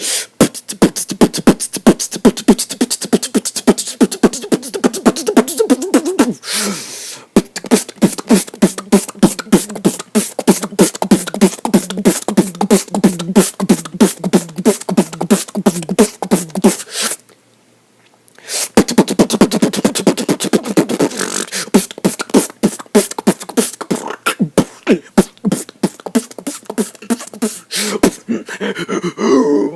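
Vocal beatboxing: a fast run of mouth-made drum sounds over a hummed bass line, breaking off briefly about six seconds in and again for about a second and a half past the middle.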